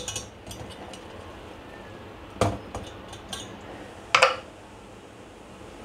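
Stainless steel bowl and spoon knocking against the gas stove's grates as the bowl of sugar syrup is lifted off the burner and set down on another. Two sharp metal knocks, about two and a half and four seconds in, the second ringing briefly.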